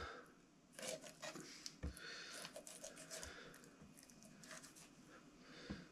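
Faint scraping of a kitchen knife drawn along a squid's body on a wooden chopping board, stripping off the sinew, with a few light taps among the strokes.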